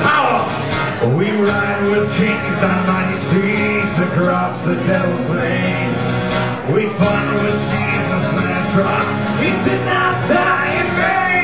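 A man singing a song while strumming a steel-string acoustic guitar, performed live.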